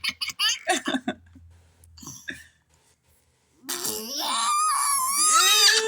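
A young girl blowing sputtering mouth-fart noises, a quick run of short splutters in the first second or so, then a long, high-pitched, wavering vocal sound about four seconds in.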